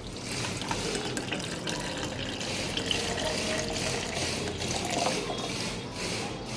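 Milk being poured into a shaker bottle: a steady pouring splash.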